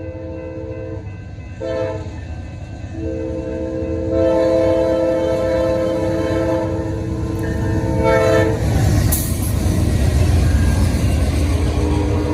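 Diesel locomotive air horn sounding a chord in several blasts: one ending about a second in, a short one shortly after, then a long one of about five seconds. Under it is the low rumble of the passing train, which grows louder once the horn stops.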